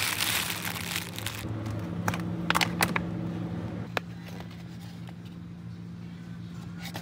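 Plastic wrap crinkling as a packet of corn cobs is handled, then a few sharp clicks and taps from handled packaging, over a steady low hum.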